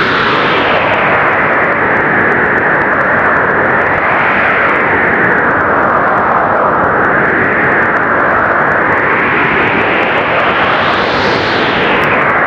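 Blizzard wind blowing hard and steadily, swelling and easing in slow gusts every few seconds.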